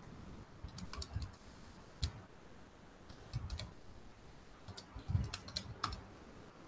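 Faint, irregular key presses: about ten scattered clicks, some with a light knock on the desk.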